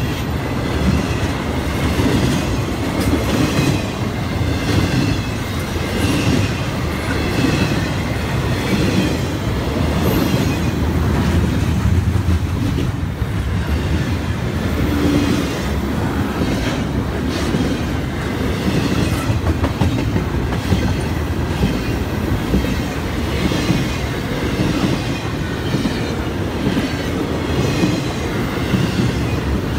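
Double-stack intermodal container cars of a freight train rolling past close by: a steady, loud rumble of steel wheels on the rails, with repeated clacks as the wheels cross the rail joints.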